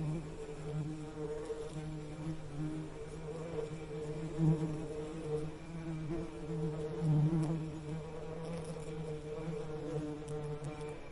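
Bees buzzing: a steady low drone that swells and fades a little in loudness.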